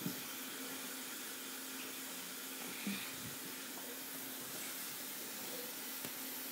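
LED fidget spinner spinning freely on a wooden tabletop: a faint steady whir under hiss, with a couple of soft knocks about three and six seconds in.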